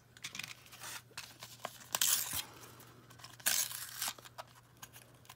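Thin plastic packaging being handled and torn open, crinkling and tearing in two main bursts about two and three and a half seconds in, with a few light clicks and taps of small plastic pieces.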